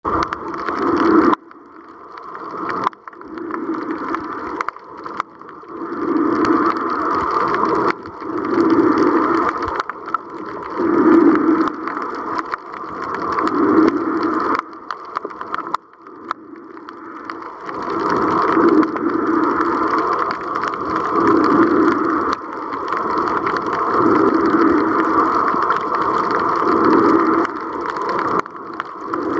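Muffled underwater water noise picked up by a submerged camera, swelling and fading in regular surges about every two and a half seconds, with a quieter stretch around the middle.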